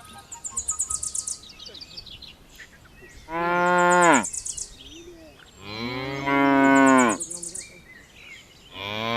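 Bovine mooing: three long, loud moos, the first falling in pitch as it ends and the third starting near the end. High, rapid chirping trills repeat between and over the calls.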